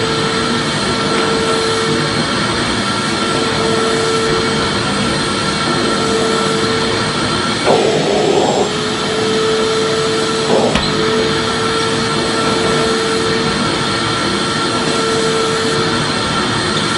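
Vacuum cleaner running steadily: an even rushing noise with a steady hum. There is a brief surge in the sound about eight seconds in and a short click near eleven seconds.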